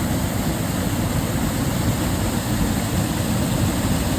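Waterfall's falling water making a steady rushing noise with a heavy low rumble.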